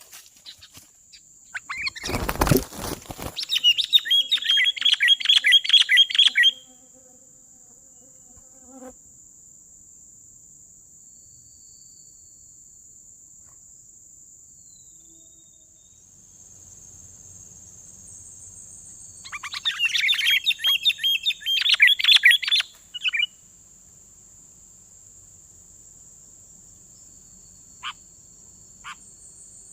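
Sooty-headed bulbuls giving fast, harsh chattering calls in two bouts, the agitated sound of a wild bird fighting a decoy bulbul. A brief loud flurry, like wings flapping, comes about two seconds in. A steady high insect whine runs underneath.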